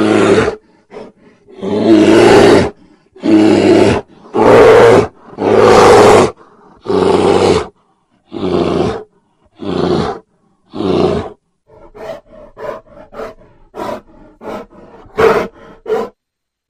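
A tiger and a sloth bear fighting: a series of loud roars, each about a second long and coming every second or so, then a quicker run of short growls and snarls in the last few seconds.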